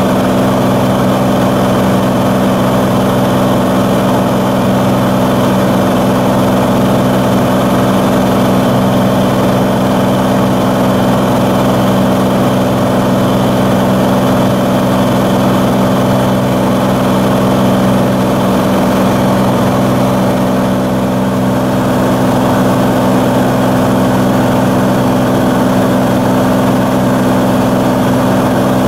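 Cirrus SR22's six-cylinder piston engine and propeller, heard from inside the cabin in flight: a loud, steady drone that holds one even pitch throughout.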